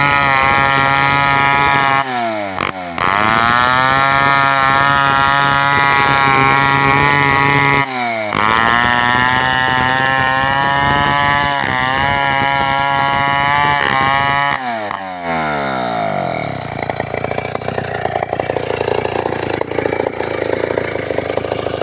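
Two-stroke chainsaw running at high revs while splitting a coconut palm trunk. Its pitch drops sharply and climbs back twice as the throttle is eased and reapplied. About fifteen seconds in it drops away to a rough, uneven idle.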